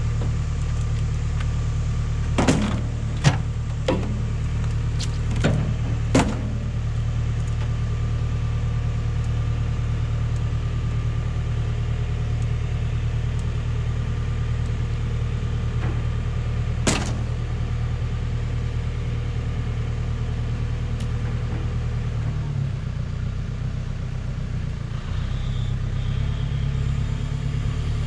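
Engine of a hydraulic grapple loader running steadily at a low hum while it lifts a truck cab, with sharp metal clanks: five in quick succession early on and one more partway through. The engine note drops briefly near the end, then picks back up.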